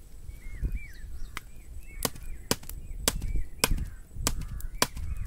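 Open wood fire crackling, with sharp irregular pops about two a second. A small bird chirps repeatedly in the background.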